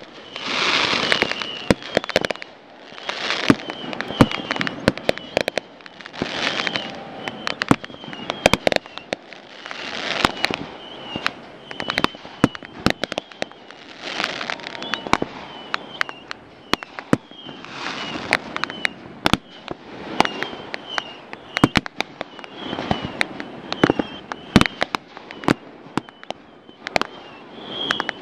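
Fireworks going off: a steady run of sharp bangs, with longer swells of crackling every few seconds.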